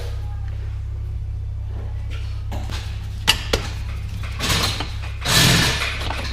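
A steady low hum with a few sharp clicks and knocks of metal tools and parts being handled during motorcycle wheel work, and a louder scraping or rustling noise about five seconds in.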